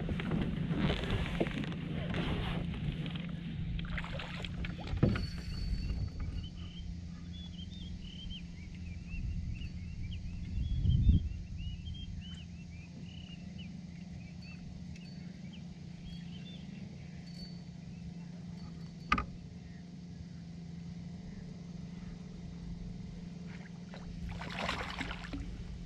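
Water splashing at a fishing kayak, in bursts near the start and again near the end, with a few sharp knocks, over a steady low hum. Faint high chirping runs through the middle.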